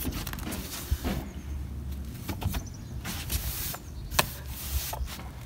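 Broom sweeping the boat's deck: bristles brushing in uneven strokes with pauses, and a few sharp knocks.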